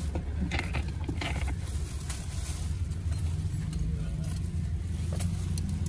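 Scattered light clicks and taps as the head unit's plastic dash trim is handled and a screwdriver and screw are picked up, over a steady low hum.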